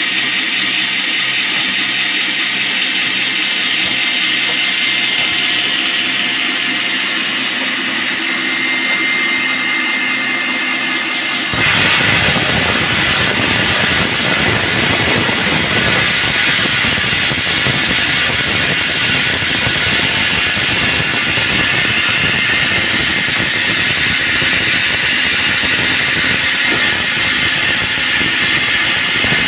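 Band sawmill running with a steady, loud mechanical noise. About twelve seconds in it turns abruptly louder and rougher, with a low rumble added.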